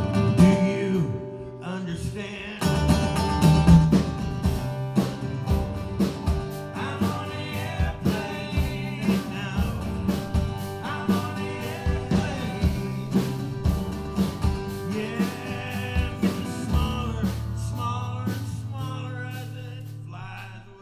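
Instrumental break of live acoustic country-folk music: an acoustic guitar strummed in a steady rhythm, with a lap steel guitar playing sustained, gliding slide notes over it.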